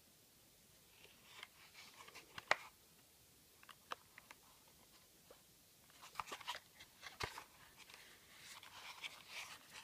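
Light rustling of paper and small clicks from a homemade paper model handgun being handled, its parts worked as a round is fed. The clicks come scattered at first and grow quicker and denser over the last few seconds.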